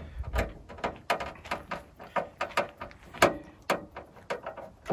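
Phillips screwdriver turning a screw by hand into a plastic blind insert in a Jeep tailgate: a run of short creaks and clicks, about three a second.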